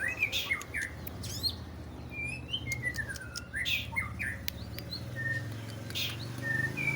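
Long-tailed shrike singing: rapid runs of repeated chirps near the start and end, with sharp clicking notes and quick swooping whistles in between.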